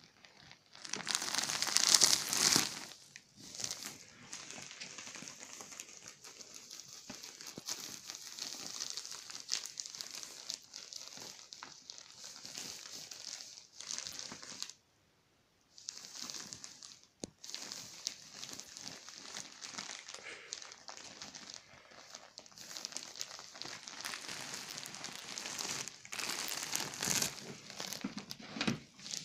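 Clear plastic pillow packaging crinkling and rustling continuously as a ferret crawls around inside the bag. The crinkling is loudest in the first few seconds and breaks off briefly about halfway.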